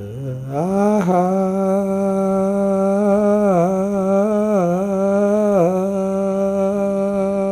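A man's lone voice crooning a slow tune. The voice rises to a held note about a second in, then holds it with a few brief dips in pitch.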